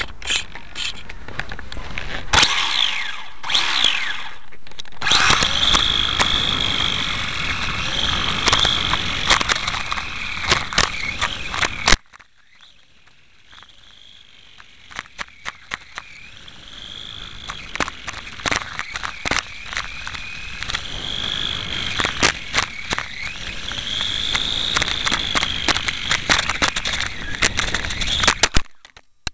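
On-board sound of a Venom GPV-1 radio-controlled motorbike riding: a motor whine that rises and falls with the throttle, over rumble from the road and many rattling clicks and knocks. The sound breaks off sharply after a loud click about twelve seconds in, builds again, and drops away abruptly near the end.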